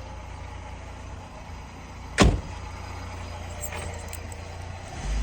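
A car door slams shut about two seconds in, one sharp bang over a steady low rumble, with a softer low thump near the end.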